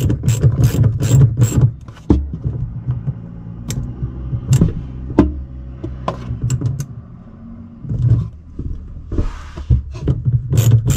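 Socket ratchet clicking in quick strokes as stainless hose clamps on the holding-tank hose fittings are tightened, for the first second and a half and again near the end, with scattered single clicks and handling knocks in between. A steady low hum runs underneath.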